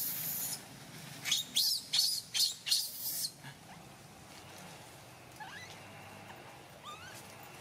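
Baby macaque screaming in distress while being handled roughly by its mother: a shrill scream at the start, then a quick run of about six short, high screams, trailing off into a few faint squeaks.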